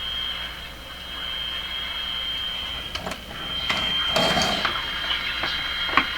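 Admiral Y846 five-tube AM radio playing static with a steady high-pitched whistle through its speaker while being tuned between stations, with a few sharp clicks.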